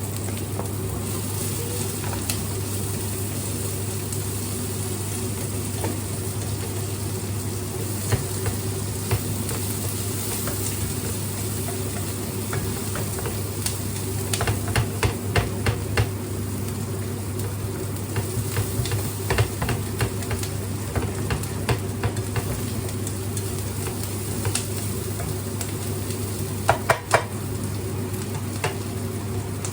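Food sizzling in a frying pan while a utensil stirs it, with bursts of clinks and scrapes against the pan, the loudest ones near the end. A steady low hum runs underneath.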